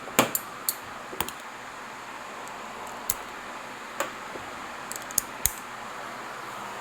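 Irregular light clicks and taps from hands working plastic trim, cables and small tools inside a Jeep's center console: a quick cluster near the start, then single sharp clicks every second or so.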